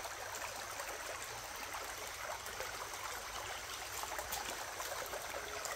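Rocky mountain stream running steadily, an even babble of water over stones.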